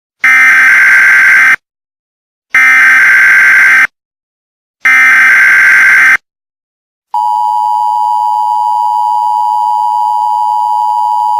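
Emergency Alert System tones. First come three loud buzzing digital data bursts (the SAME header), each a little over a second long with about a second's pause between them. About seven seconds in, the steady two-tone attention signal starts as a continuous whine.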